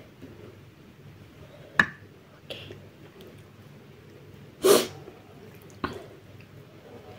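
Close-up eating noises: a few sharp clicks and taps as the bowls and noodles are handled, and about halfway through one loud, short sniff through the nose.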